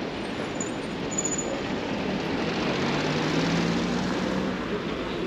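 City street noise with a vehicle passing, its low hum growing a little louder around the middle and then easing.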